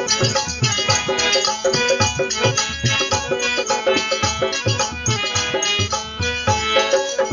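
Instrumental break of a Fiji Hindi folk song: a steady drum beat under held melodic notes, with no singing.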